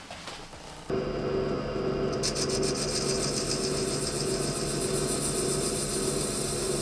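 Schaublin 102 lathe running while a parting tool cuts into a spinning metal workpiece held against the tailstock dead center: a steady scraping cut over the machine's hum. It starts abruptly about a second in.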